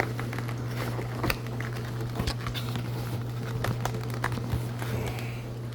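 Scattered clicks, knocks and light rustles of a knife set's box and packaging being opened by hand, over a steady low hum.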